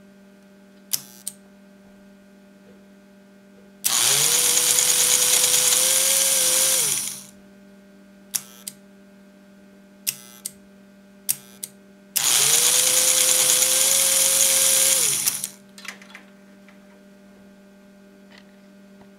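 Toy steam locomotive's electric motor and gearing on an American Flyer chassis, running with its drive wheels spinning free, twice for about three seconds: each time it speeds up to a steady whine and winds down. Short sharp clicks, mostly in pairs, come between the runs.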